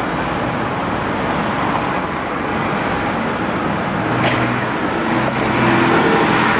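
City street traffic: steady road noise from passing cars, then from about two-thirds of the way in a double-decker bus passing close by, its engine note coming up and the sound growing louder near the end. A single brief clack is heard as the bus goes by.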